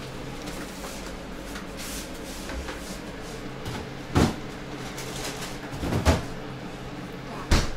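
A refrigerator's bottom freezer drawer being opened and rummaged in, with three knocks and thuds about two seconds apart, the loudest near the end.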